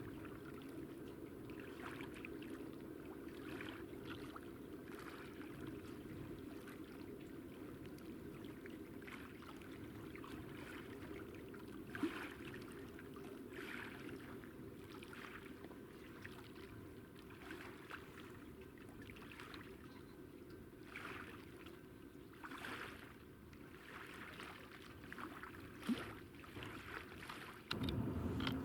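Distant freight train crossing a long railway bridge: a faint, steady rumble with light, rhythmic clatter of wheels over rail joints. A louder, deeper rumble sets in suddenly near the end.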